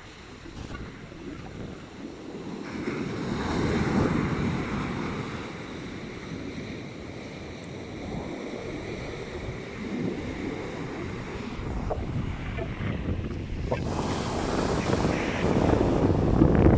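Rough, storm-driven sea surf breaking on the shore, swelling in surges about four seconds in and again near the end, with gusty wind buffeting the microphone.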